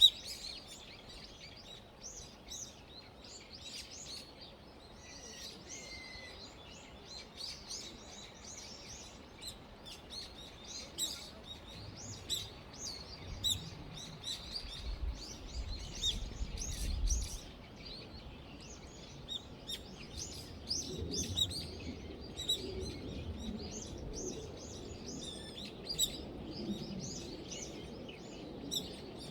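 Small birds chirping and twittering, many short high chirps overlapping throughout. A low rumble comes in briefly about halfway through.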